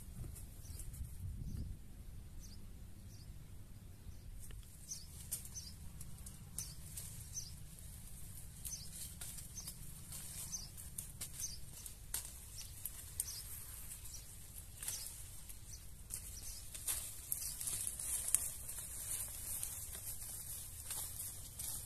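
Orchard ambience with small birds chirping, one repeating a short high chirp over and over, under rustling of leaves and grass and scattered light clicks and snaps as oranges are picked from the tree.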